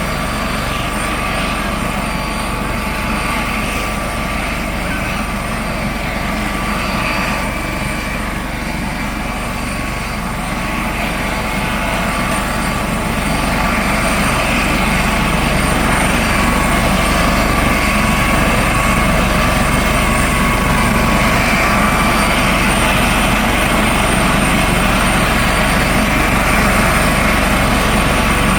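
Coast Guard helicopter running, a steady rotor and turbine sound with a thin whine over it, growing louder about halfway through.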